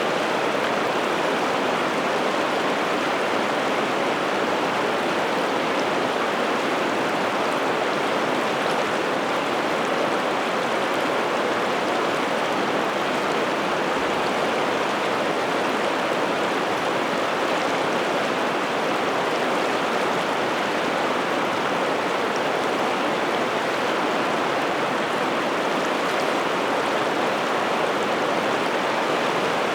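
River water rushing and flowing steadily, an even unbroken wash of sound from the Piteälven.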